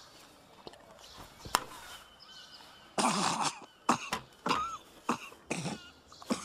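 A man coughing and clearing his throat in a run of harsh fits that starts about three seconds in. Before that there is a single sharp clink.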